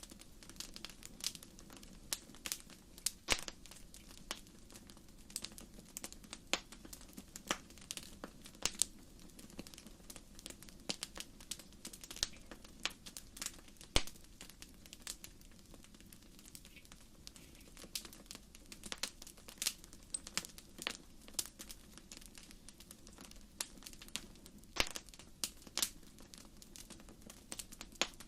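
Lava flow crackling: its cooling crust snapping and clinking in irregular sharp clicks, several a second, over a faint low hum.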